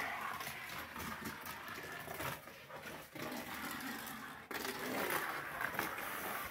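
Hot Wheels die-cast '77 Dodge Van rolling fast down a toy track, its small wheels whirring steadily with scattered clicks and knocks as it runs over the track surface.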